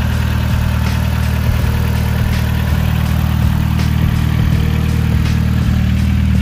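Turbocharged Mitsubishi Lancer's 4G15 MIVEC four-cylinder engine idling steadily through a new 3-inch downpipe and exhaust.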